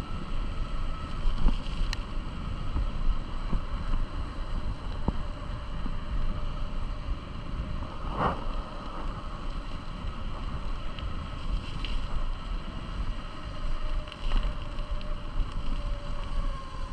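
Wind buffeting the microphone on a fast ride, a steady low rumble with a faint steady whine over it and a brief rattle about eight seconds in.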